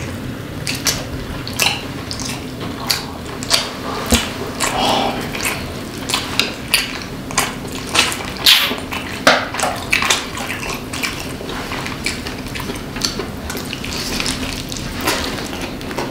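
Two people biting into and chewing jerk-sauced roast chicken legs close to the microphone: a run of wet smacks, lip clicks and tearing bites, several a second at times.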